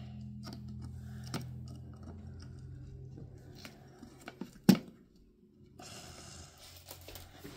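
Small clicks and rustles of jumper wires being handled and pushed into breadboard and Arduino header pins, with one sharper knock just before five seconds in. A low steady hum sits under the first half and fades out.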